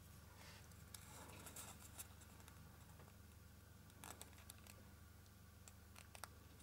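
Near silence, with faint scratching and a few light clicks as fingers handle a smoothfoam ball and a flexible measuring tape laid over it.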